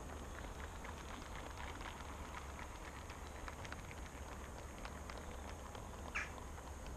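Garden-railway model train's Network SouthEast coaches rolling past, their wheels clicking lightly and rapidly over the track over a steady low hum. About six seconds in there is one brief high squeak.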